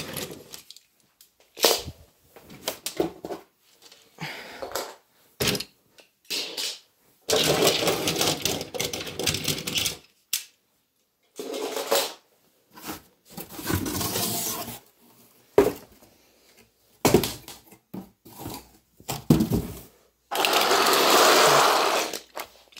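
Handling and rummaging noise: irregular knocks, clicks and rubbing, with several longer scraping or rustling stretches of a second or two, the longest near the end.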